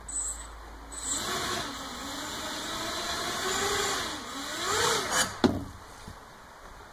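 DIY quadcopter's brushless motors and propellers whirring, the pitch rising and falling unevenly as the throttle changes, during a failed lift-off attempt. About five seconds in, the whir rises to its loudest and then there is a sharp knock as the craft tips on the deck, after which the motor sound drops away.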